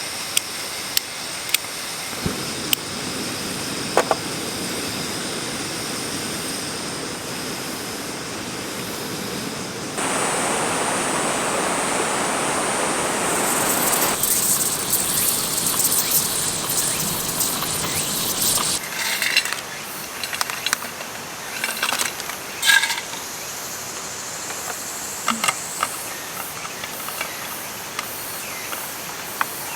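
Steady rush of a mountain stream, changing in tone at several cuts, with a steady high-pitched hum over it at first. Scattered sharp clicks and taps, the loudest a little past the middle.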